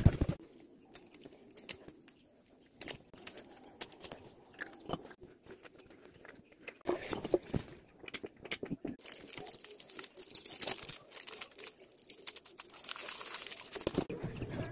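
Close chewing and crunching with scattered sharp clicks, followed by a few seconds of rustling against the phone's microphone near the end.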